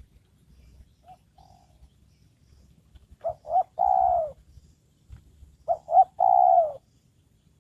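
Spotted dove cooing: two phrases, each two short notes followed by a longer, falling coo, with a pair of soft notes about a second in.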